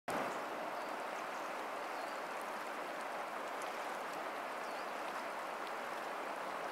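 The Dunajec, a fast-flowing mountain river, running over a rocky bed with a steady rushing sound.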